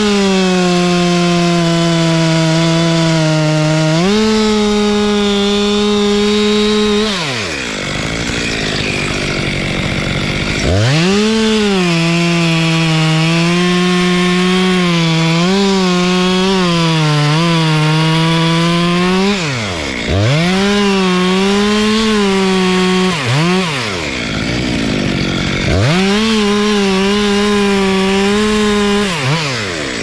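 Stihl chainsaw cutting into the base of a Robinia trunk at full throttle, its engine note sagging and wavering as the chain bites into the wood. Several times it drops back to idle between cuts and revs back up into the wood.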